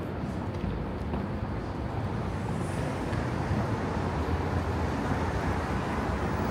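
Steady street traffic noise of passing cars, growing a little louder toward the end.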